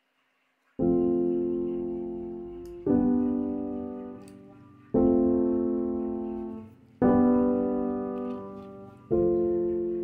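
Background piano music: slow, sustained chords struck about every two seconds, each ringing and fading away. It starts about a second in.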